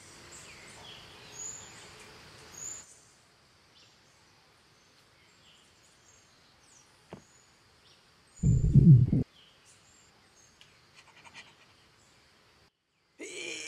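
Tropical forest morning ambience sound effect: scattered distant bird chirps and calls over a faint insect bed, fuller for the first few seconds and then thinner. A little over eight seconds in, a short, loud, low stomach growl of under a second, the character's hunger.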